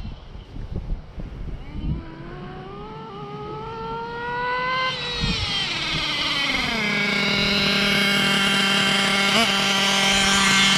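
Small nitro engine of a Kyosho Inferno GT2 RC car being tuned on the bench. After a few knocks at the start, its pitch climbs slowly for a few seconds, then drops and settles into a steady, louder run as the fuel mixture, slightly rich, is adjusted.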